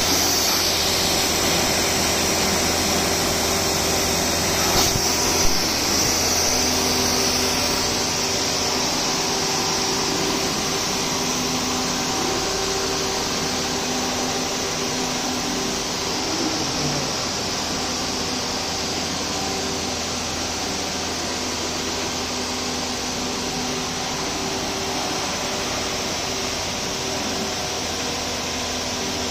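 Twin-screw PVC pipe extrusion line running: a steady mechanical hum and whir from its motors and pumps, with a high hiss that fades about eight seconds in.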